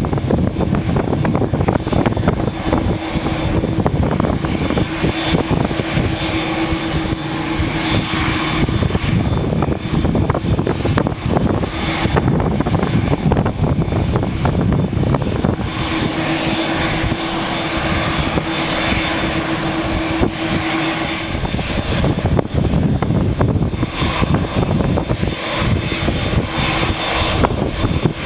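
Boeing 787-8 jet engines running at taxi power as the airliner taxis toward the microphone, with a steady tone that comes and goes. Strong wind buffets the microphone throughout.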